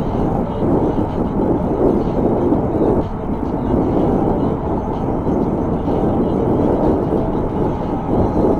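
Steady wind rush and rumble on the microphone while riding an e-bike along a paved path, with tyre noise underneath.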